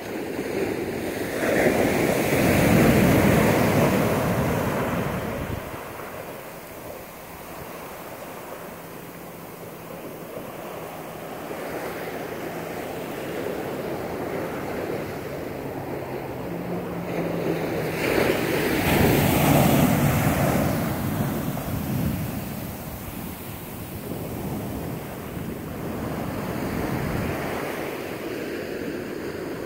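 Ocean surf breaking and washing up a sandy beach. Two waves crash loudly, one about two seconds in and another near the twenty-second mark, with softer wash between them.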